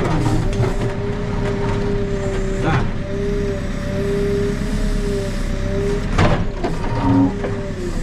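Backhoe loader's diesel engine running steadily with a continuous whine, and two short knocks, one near the middle and one about six seconds in.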